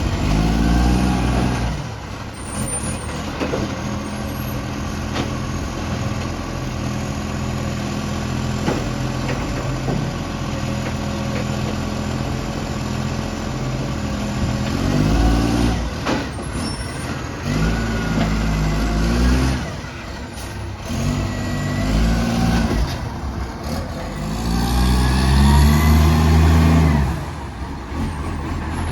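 Garbage truck's diesel engine, which has an exhaust leak, idling and revving up several times, the longest rev near the end. A short hiss of air comes about halfway through.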